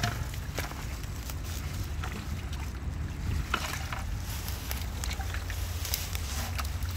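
Steady low rumble of wind on the microphone, with scattered short rustles and knocks of handling as a plastic bucket is carried through long grass.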